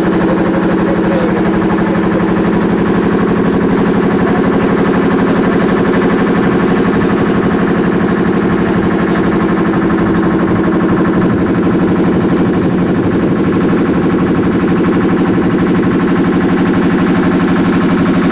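An engine running steadily at close range, a constant hum with a fast, even pulse.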